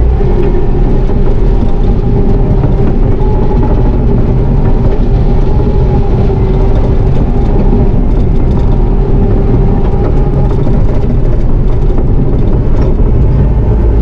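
Bobcat T650 compact track loader's diesel engine running steadily at working revs, heard from inside the cab as the machine drives across gravel: a loud, even drone with a steady whine on top.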